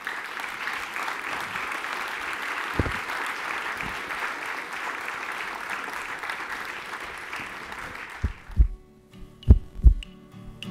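An audience applauding steadily for about eight seconds; then the applause cuts off and music comes in, with held notes over deep, regular drum thumps.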